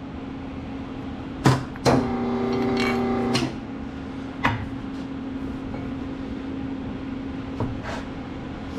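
Hydraulic shop press running with a steady hum, with a few sharp metal clicks and knocks as the axle flange is shifted into position. About two seconds in, a louder steady machine tone sounds for about a second and a half.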